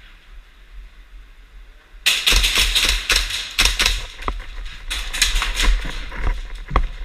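Airsoft guns firing rapid bursts, a dense rattle of sharp cracks that starts suddenly about two seconds in and keeps going.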